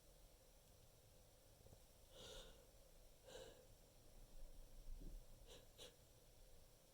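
Near silence with a few faint breaths from a person in the middle of a sneezing fit, spread through the middle of the pause.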